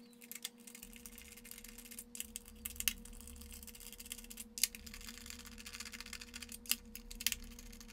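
Small precision screwdriver turning screws out of the die-cast metal underside of a model tank: faint, irregular clicks and scrapes, a few sharper than the rest, over a steady faint hum.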